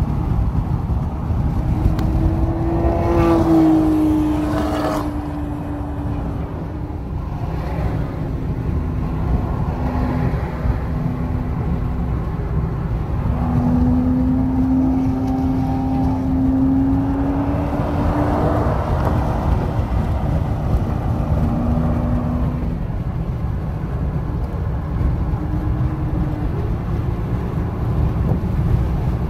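Cars at highway speed: a steady low rumble of road and wind noise, with a car engine's note rising and falling several times as it accelerates and eases off.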